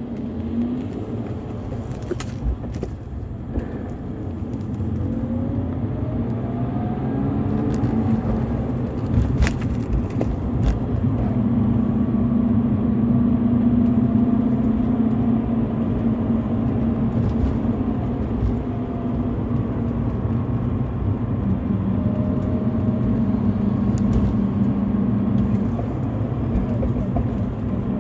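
BMW E46 320i's M52TU 2.0-litre straight-six engine running, its pitch holding steady for stretches and rising in a few short climbs, with loudness building over the first half. A few short sharp clicks come and go over it.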